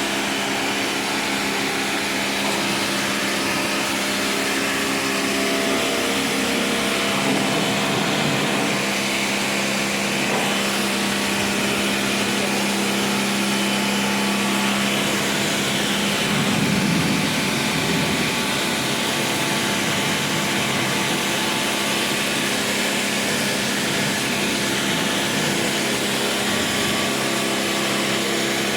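A pressure-washer pump running steadily with the hiss of its water jet spraying, swelling briefly a little past the middle.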